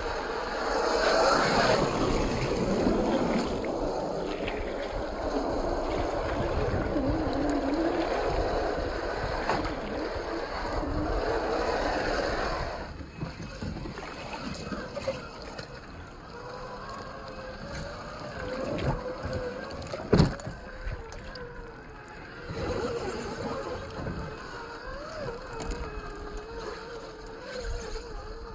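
Electric drive motors and gearboxes of RC rock crawlers whining as they crawl over wet rock in a shallow stream. A wash of water and wind noise fills the first half and drops away about thirteen seconds in, leaving a thinner wavering whine. One sharp knock comes about twenty seconds in.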